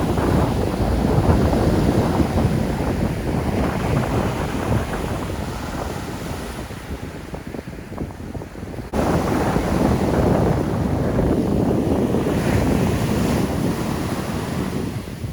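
Heavy surf breaking on the shore, mixed with strong wind buffeting the microphone. The roar eases off and then comes back suddenly louder about nine seconds in.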